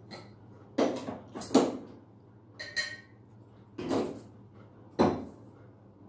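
Drinking glass and other small items being handled: about five separate knocks and clinks, roughly a second apart, one with a brief glassy ring.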